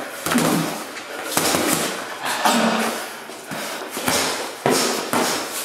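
Boxing gloves landing punches in a sparring exchange: a string of sharp thuds, about six in a few seconds, with two coming close together around four to five seconds in.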